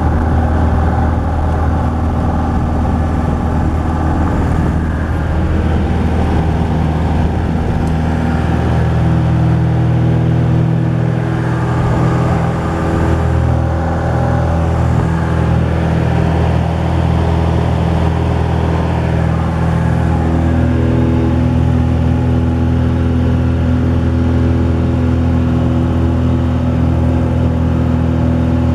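Cessna 172's four-cylinder piston engine and propeller running steadily, heard from inside the cabin, with the engine note shifting a few times.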